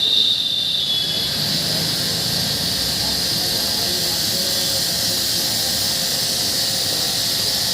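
Steady high-pitched hissing, with a thin whistle over it for about the first second.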